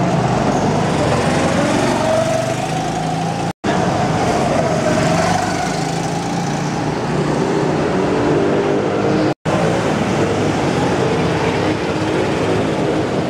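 Go-kart engines running as karts lap the track, their pitch rising and falling with the throttle. The sound breaks off for an instant twice.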